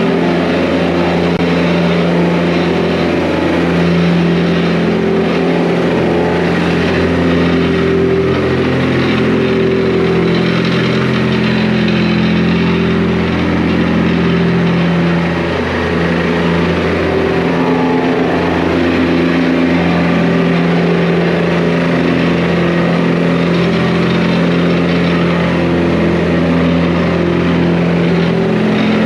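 An engine running steadily for the whole stretch, its pitch shifting a little up and down as it works.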